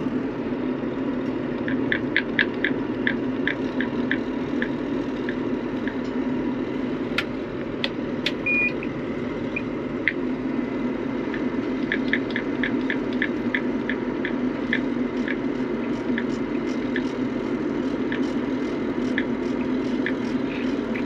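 Cab display buttons clicking in quick runs of about three a second, with one short electronic beep, as the sled's dash and monitor are programmed over a steady low machine hum.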